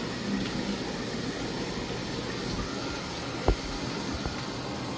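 Water running steadily through the newly plumbed supply line, a continuous hiss, with a sharp click about three and a half seconds in. The water is pushing trapped air out of the line.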